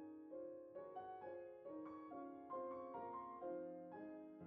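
Quiet background piano music: a slow, even line of single struck notes, about two a second, each ringing and fading.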